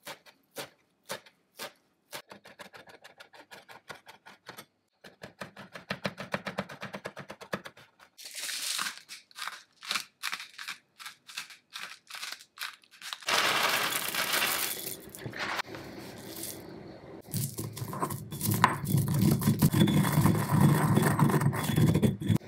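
A chef's knife chopping parsley on a wooden cutting board: single chops at first, then a fast steady chopping rhythm. Then a hissy scraping and sprinkling of salt, and near the end peppercorns crunching and grinding under a pestle in a stone mortar.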